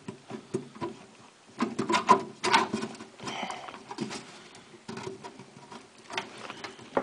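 A hard drive being worked into the metal drive cage of a desktop tower case, with irregular scraping, clicks and knocks as it is shifted and slid into the bay.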